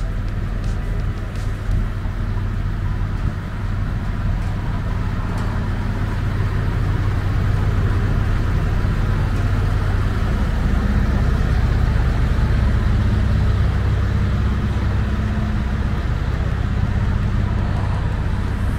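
Siemens Desiro diesel multiple unit's engines running steadily at a standstill, a low hum. It grows louder about six seconds in.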